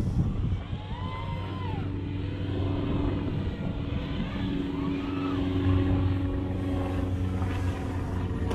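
FPV racing quadcopter motors whining, their pitch swinging up and down with the throttle, over a steady low hum.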